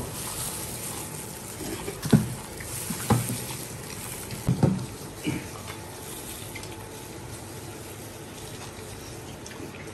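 Wet eating sounds of braised cow hooves being chewed and sucked off the bone, over a steady background hiss, with a few brief knocks and mouth sounds around two, three and four and a half seconds in.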